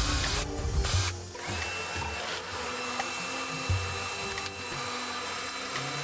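A cordless drill bores briefly into plywood, then a power tool's motor runs steadily with a thin high whine for about four seconds and stops near the end. Background music plays underneath.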